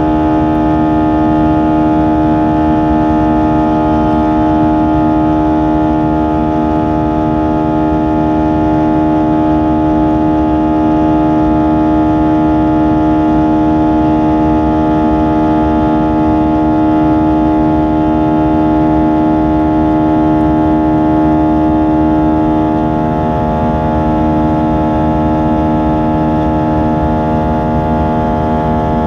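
Airbus A320 cabin noise during the climb after takeoff: the engines' steady drone with many steady tones, the strongest a low hum, over a deep rumble. It eases slightly about three-quarters of the way through.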